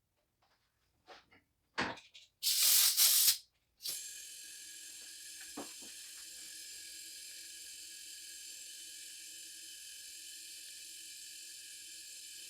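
Compressed air: a sharp click, then a loud burst of hissing air lasting about a second, then a steady faint hiss with a thin whistle of shop air flowing through a cylinder leak-down tester into the cylinder.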